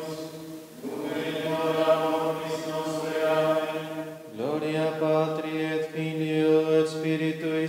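Group of voices chanting Latin plainchant together in long held notes, pausing briefly for breath about a second in and again about four seconds in.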